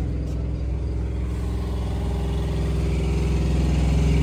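A vehicle engine idling steadily, getting a little louder in the second half.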